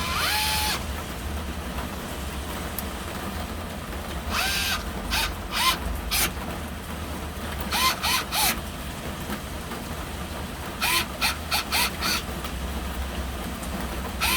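Cordless drill/driver run in short trigger pulses, about a dozen quick spin-ups in clusters. Each one gives a brief whir whose pitch rises and falls away. A steady low hum sits under it throughout.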